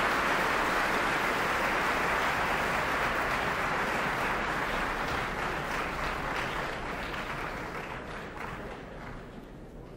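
Dense, even crackling noise made of many small sharp sounds, fading away steadily over the last few seconds.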